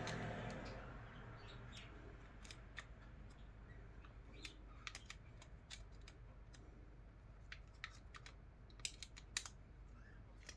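Faint, scattered small clicks and taps of a screwdriver working at the screws and plastic parts of an electric fan being taken apart.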